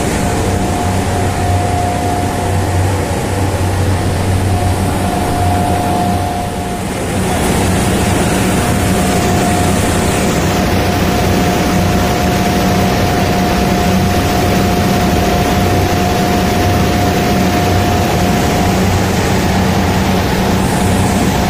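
Steady drone of running chiller-plant machinery: a low hum with a steady whine over it and a broad rushing noise, dipping briefly about seven seconds in.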